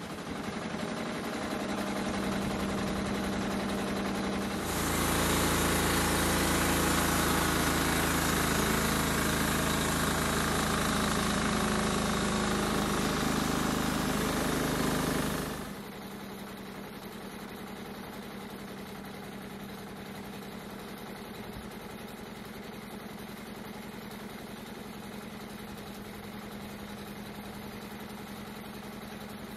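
Engine of a homemade band sawmill running through a cut in a larch log. It becomes much louder and fuller from about five seconds in, then drops off sharply about sixteen seconds in to a steady idling hum.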